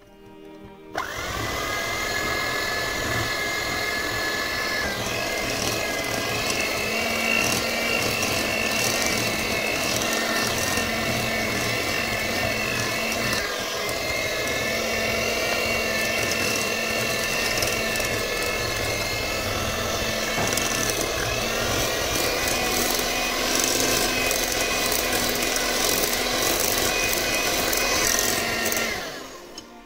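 Moulinex electric hand mixer running steadily, its beaters whipping butter and powdered sugar into a cake batter in a glass bowl; a steady motor whine that starts about a second in and cuts off near the end.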